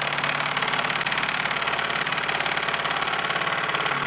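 Makita LXT cordless impact driver hammering steadily, a fast even chatter from its hammer-and-anvil mechanism, as it slowly drives a 3-inch screw into a wooden stud against heavy resistance. It is very loud.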